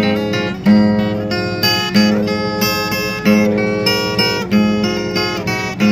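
Background music of an acoustic guitar playing chords, with strong strokes at a steady pace about every second and a quarter.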